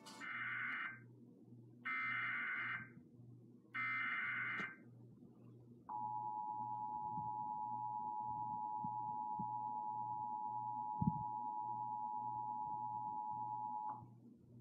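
Emergency Alert System signal opening a new alert: three short, harsh digital data bursts of the SAME header about two seconds apart. Then comes the EAS attention signal, a steady two-tone alert tone of about 853 and 960 Hz that lasts about eight seconds and stops suddenly. A low buzzing hum runs underneath.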